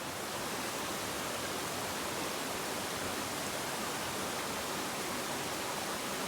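Mountain river flowing, a steady even hiss of running water.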